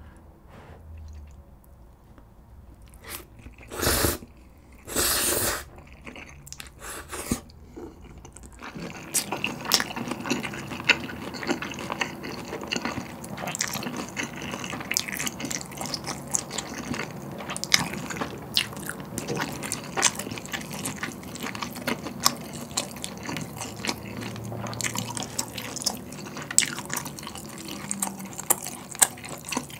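Close-miked eating of sauced ramyeon noodles with pork belly: two loud slurps about four and five seconds in, then steady wet chewing full of small mouth clicks.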